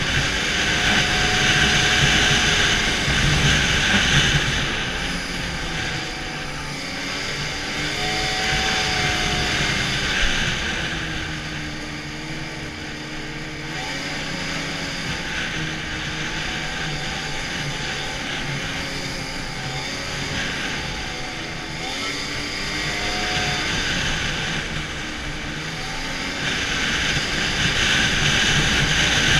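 Arctic Cat snowmobile under way on the trail, its engine pitch rising and falling repeatedly as the throttle changes. A rushing hiss is loudest in the first few seconds and again near the end.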